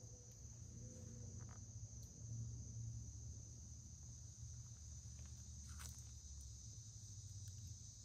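Steady high-pitched chorus of insects, faint, with a low steady rumble beneath and a couple of faint small clicks.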